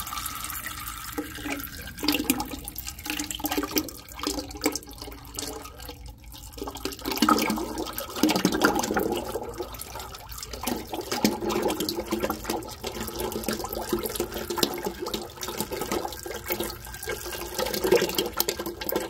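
Used engine oil pouring in several streams from the partly pulled drain plug of a Cat C12 diesel's oil pan and splashing into a filling metal 5-gallon bucket, getting louder about seven seconds in.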